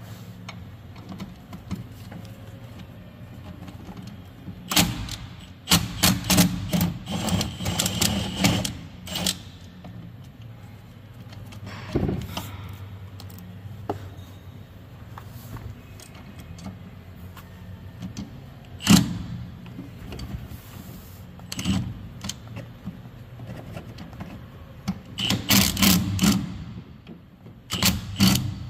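Hand socket ratchet clicking in quick runs while working the bolts of a Thermo King condenser fan motor, two longer bursts with a few single metal knocks between, over a steady low hum.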